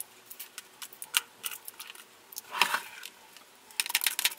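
Lipstick cases being handled and sorted in a slotted drawer organizer: scattered light clicks of the cases and caps, with a denser clatter a little past the middle and again near the end as several are moved together.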